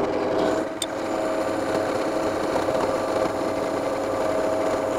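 Electric power tool running steadily at a constant pitch, starting abruptly and keeping an even level throughout.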